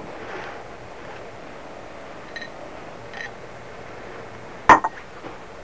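A small glass object being handled on a tiled countertop: two light clinks with a short ring about two and a half and three seconds in, then a sharper double knock near the end as it is set down or lifted.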